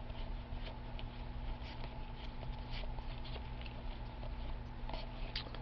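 Trading cards being flipped through by hand: faint, scattered soft ticks and rustles over a low steady hum.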